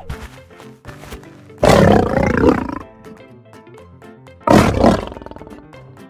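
Two lion roars, each about a second long and about three seconds apart, over background music.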